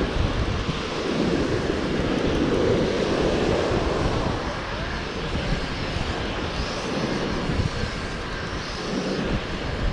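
Wind buffeting the microphone, with heavy gusty rumble over a steady rushing noise that swells for a few seconds and then eases.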